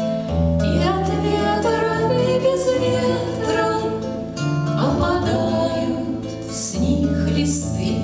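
Acoustic guitar accompaniment with two women singing a Russian bard song.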